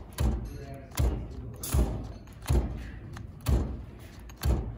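Earthquake XT cordless ratchet pulsed on its trigger against a fastener held in a bench vise, giving six heavy thumps about a second apart. The ratchet stalls on each pulse and cannot break the fastener loose.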